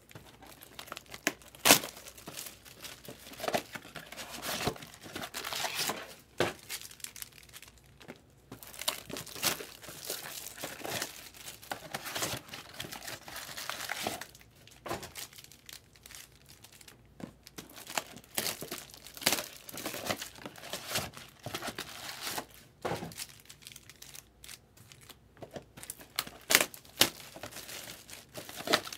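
Plastic shrink wrap being torn off sealed trading card boxes and crumpled by hand: irregular crinkling and tearing with sharp crackles, the loudest about two seconds in.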